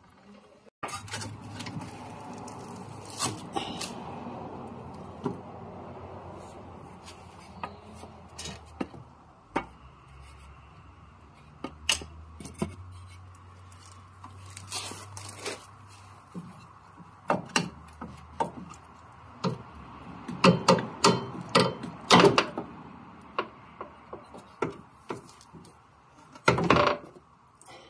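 Scattered knocks, clanks and scrapes of a Honda CR-Z factory front strut being worked loose and pulled out of its steering knuckle and wheel well by hand. There is a quick run of sharp knocks about two-thirds of the way through and a longer scrape near the end.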